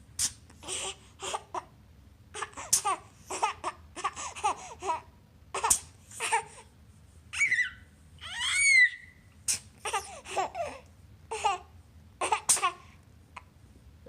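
Baby laughing and babbling in short bursts, with one long high squeal a little past halfway.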